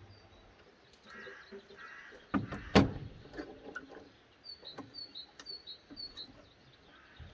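A small bird chirping a quick series of short, high, falling notes about halfway through, over scattered knocks and taps; the loudest is a sharp knock about three seconds in.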